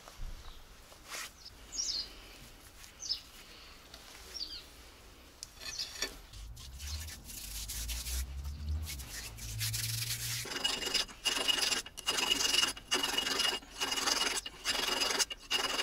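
Repeated hand rubbing and scraping inside the greasy end of a KamAZ truck's axle housing, starting about ten seconds in as strokes a little more than one a second. Before that there are only a few faint chirps and a low rumble.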